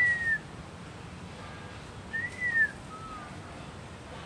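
A clear whistled note that rises and falls in pitch, heard twice about two seconds apart. The second is followed by a short, lower, falling note.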